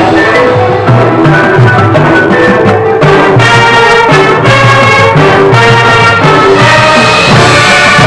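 High school marching band playing loudly: brass over the front-ensemble percussion, with a pulsing low bass line.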